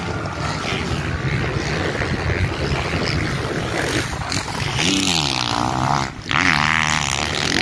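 Motocross bikes' engines racing, several at once, their pitch climbing and falling as the riders rev through the track, with the biggest swoops about five seconds in and again near the end.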